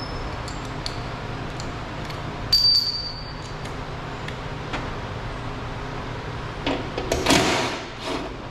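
Hand tools clinking as a socket extension and ratchet are handled to reach screws up inside the fender: a sharp metal clink with a brief ring about two and a half seconds in, a few light taps, and a short rasping rattle about seven seconds in, over a steady low hum.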